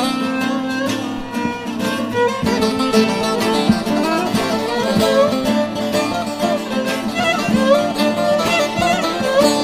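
Instrumental break of a Kurdish pop song: a wavering melody line over plucked strings and a steady beat, with no singing.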